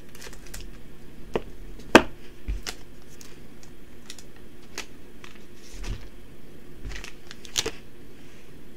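Scissors snipping open a foil trading-card booster pack, then the foil wrapper crinkling and the cards being slid out and handled: scattered sharp clicks and short rustles, the sharpest about two seconds in.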